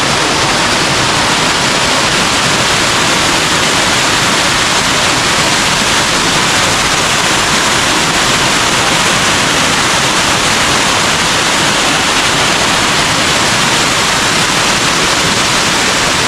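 Large waterfall rushing: water pouring over the drop and crashing onto the rocks below, a loud, steady roar without a break.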